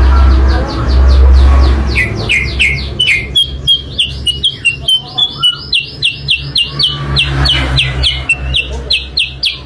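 Kutilang sutra song: a fast, even string of short, sharp downward-sliding chirps, about five a second, starting about two seconds in. A loud low rumble fills the first two seconds.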